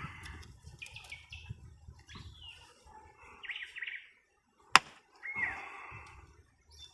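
Faint bird chirps in the background, with low handling noise and a single sharp click of a hand tool a little under five seconds in.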